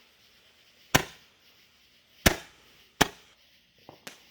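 Roman candle firing: three sharp pops about a second apart, each dying away quickly, then two faint clicks near the end.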